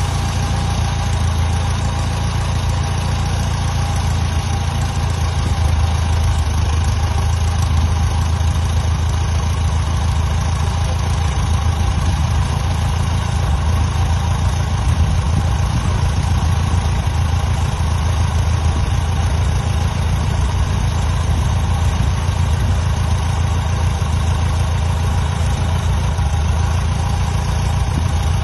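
Freshly overhauled Continental O-200 four-cylinder air-cooled engine of a 1946 Cessna 120 running steadily at idle.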